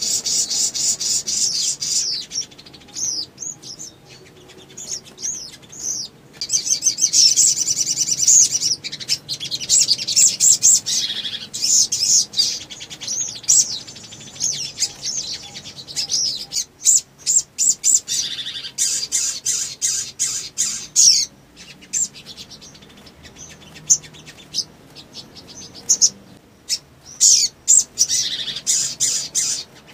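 Caged sunbird (sogon) singing in long, fast runs of high-pitched chirps, twitters and rapid trills, with short pauses between the runs.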